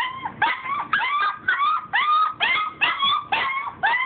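Labrador retriever puppy crying in a rapid string of short, high-pitched whining yips, about two to three a second, each bending up and then falling in pitch.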